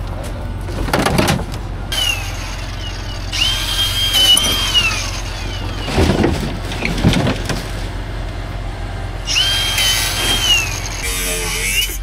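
A power tool runs twice, each time for about a second and a half, its high whine rising to a steady pitch and then winding down. A steady low engine hum runs under it, with a few short knocks.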